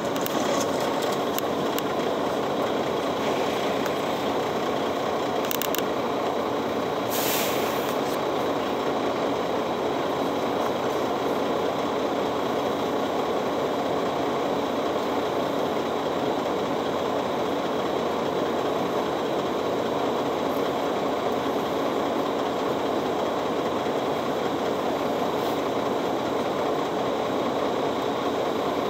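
City bus engine running steadily, heard from inside the passenger cabin as the bus slows and then idles at a stop. A brief hiss comes about seven seconds in.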